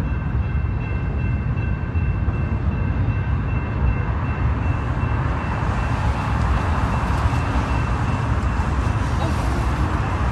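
CN freight train rolling past, a steady heavy rumble of wheels on rail. A few thin high tones fade out in the first few seconds, and the rushing noise of the cars grows fuller after about four seconds.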